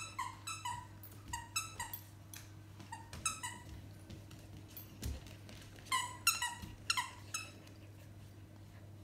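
A dog's squeaky toy being squeezed in the dogs' jaws, giving a string of short squeaks of the same pitch, two or three a second. They pause for a moment about halfway, then come back louder, with a dull thump in the gap.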